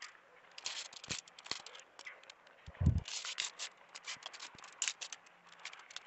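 Hands scraping loose soil and dry leaf litter back over dug sweet potato roots. It comes as a string of short, irregular scratches and crackles, with one dull thump about three seconds in.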